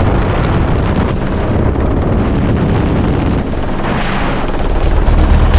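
Helicopter running, a steady loud rotor and engine noise.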